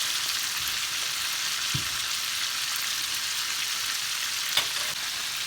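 Chicken drumsticks frying in hot oil: a steady sizzle, with a sharp click about four and a half seconds in.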